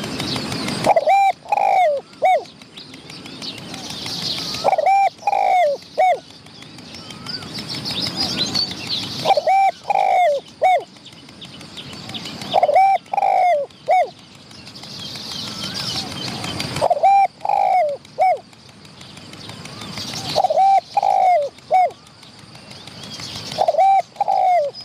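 Spotted dove cooing: a phrase of three or four low notes, repeated about every three to four seconds.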